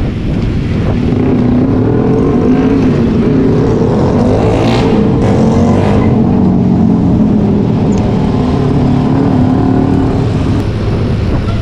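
Road traffic heard from a bicycle in slow city traffic: a motor vehicle's engine running close by, its pitch wavering, over a steady low road rumble. A short hiss comes about five seconds in.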